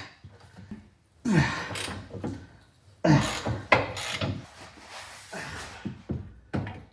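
Hand tools clicking and clattering against metal during work on a car's lower engine mount bolts, in two bursts of sharp knocks and rattles, the first about a second in and the second, longer one about three seconds in.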